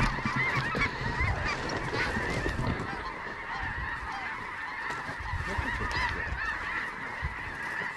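A large flock of snow geese calling overhead: a dense, unbroken chorus of many overlapping high-pitched honks.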